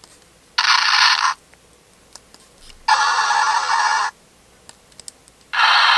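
Electronic sound effects played through the small built-in speaker of a Zoids Bio Tyranno toy, set off by pressing down on its back. There is a short burst about half a second in, a longer one around three seconds in, and a long one that starts near the end. The sound is thin, with no bass.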